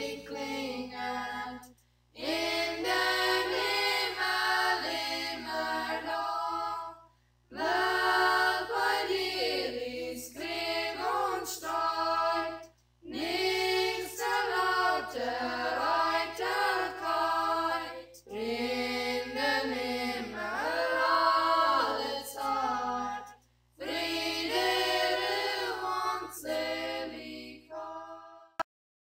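Unaccompanied voices singing in phrases of about five seconds, each followed by a short pause. The singing stops shortly before the end.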